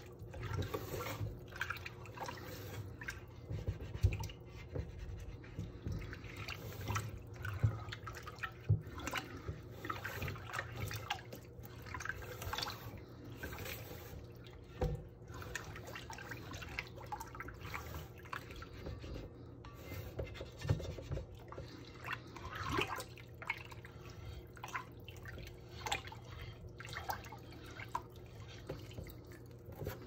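Hands scrubbing and swishing soapy water inside a red enamel-lined pot in a stainless steel sink: irregular small splashes and drips, with a few light knocks of the pot against the sink.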